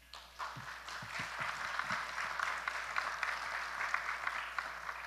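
Audience applauding, a dense patter of many hands clapping that starts about half a second in and tapers off near the end.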